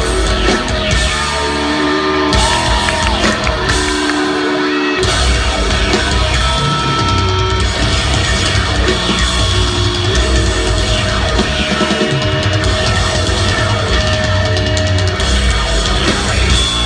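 Live rock band playing loud, with distorted guitars, heavy drums and some shouted vocals, heard through a crowd-held recording in a concert hall.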